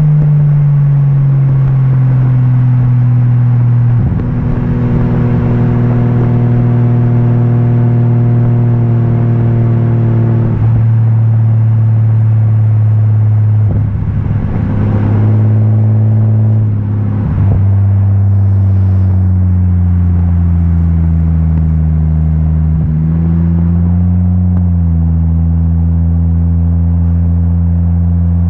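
Exhaust note of a Toyota Aristo's 2JZ twin-turbo straight-six, heard at the tailpipe while driving: a steady low drone whose pitch sags slowly, with several brief changes in the note.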